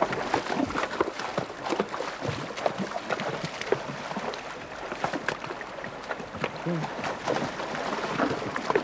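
Highland cattle wading through a shallow, stony river, their legs and hooves splashing irregularly in the water.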